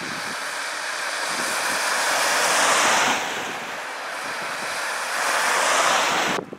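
Tyres of passing cars hissing through the wet glaze on a road coated by freezing rain: two swells of spray noise as vehicles go by, the first peaking about three seconds in and the second near the end, where it cuts off suddenly.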